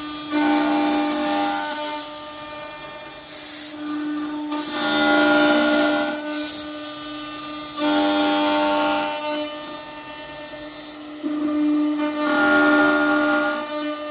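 MXZ-S086 door lock and hinge hole drilling machine grooving the lock slot in a wooden door edge: the spindle motor runs with a steady pitched whine, and the cutter's passes through the wood swell louder and fall back about every three to four seconds.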